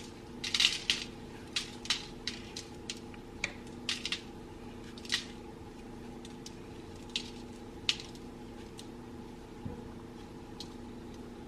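Hands kneading and squeezing cookie dough on a sheet of aluminum foil: irregular crinkles and squishes, frequent for the first five seconds or so, then only a few, over a steady low hum.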